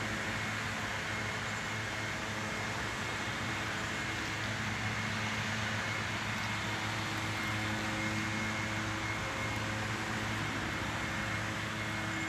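Steady mechanical hum of a running machine, a low drone with a faint high whine over an even hiss.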